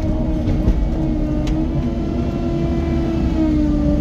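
Cat 255 skid steer's diesel engine running under load, a steady drone that dips a little in pitch about three and a half seconds in. The operator finds the machine loses nearly all its power when it turns.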